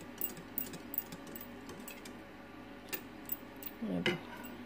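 Wire whisk beating cream in a ceramic bowl: quick light clicks of the wires against the bowl, about five a second, easing off in the middle and stopping near the end.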